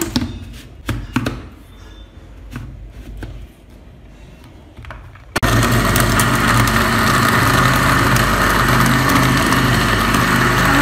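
Plastic clicks and knocks as the blender jar's lid is fitted, then about halfway through a countertop blender's motor starts suddenly and runs steadily, puréeing watermelon chunks into juice.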